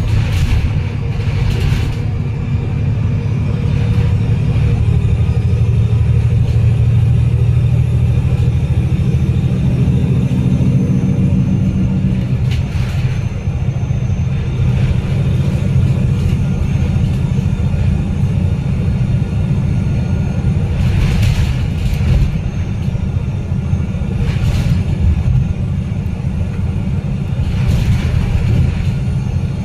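Cummins L9 diesel engine and Voith automatic gearbox of an Alexander Dennis Enviro500 MMC double-decker bus, heard from the rear seats near the engine, running steadily under way on the expressway with a deep, continuous rumble. A humming tone joins it about ten seconds in and cuts off sharply a couple of seconds later, and short hissing swishes come and go several times.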